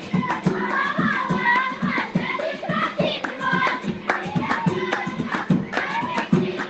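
High voices singing a folk song together, with regular hand-clapping keeping the beat.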